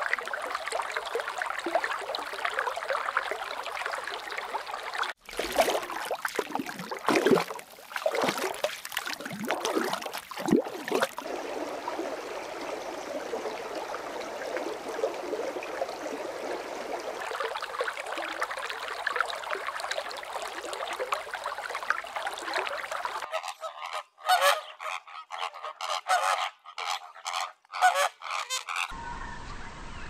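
Many birds calling over one another in a dense, continuous chatter, with abrupt changes in the sound about five seconds in and again near the end.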